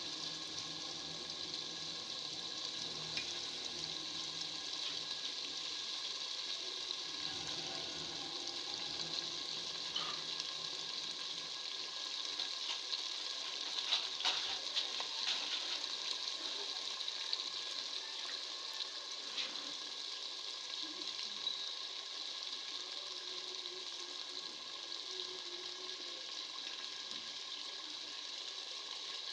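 Potatoes in onion-tomato masala sizzling steadily as they fry in a metal pot, stirred with a wooden spoon, with a few sharper scrapes of the spoon about halfway through.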